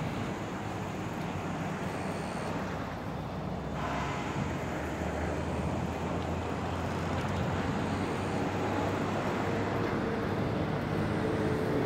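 A steady low hum under an even haze of outdoor noise, slowly getting a little louder.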